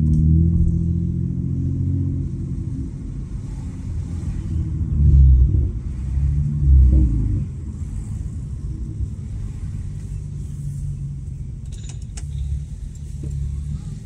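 Exhaust of a Honda Accord's 3.5 L V6 with the muffler deleted, running while driving. It swells louder twice, around five and seven seconds in, then settles to a steadier, lower drone.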